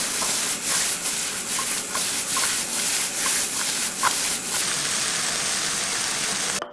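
Choy sum stir-frying over high heat in a wok: a loud, steady sizzle. During the first few seconds the silicone spatula scrapes and taps against the pan about twice a second as the greens are tossed. The sizzle cuts off abruptly near the end.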